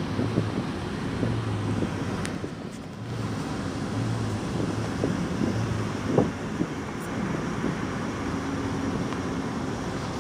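Steady road and engine noise of a moving car, heard from inside the cabin, with a low hum. A brief thump about six seconds in.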